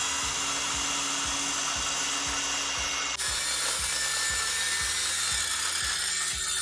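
Hilti cordless metal-cutting circular saw cutting through a wood-look metal ceiling panel: a loud, steady, hissing blade-on-metal cutting noise with the motor's tone under it. The sound changes abruptly about three seconds in.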